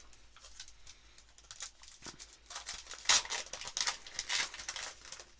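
Foil wrapper of a trading-card pack being torn open and crinkled by hand: light handling at first, then a run of crackly tearing from about halfway through.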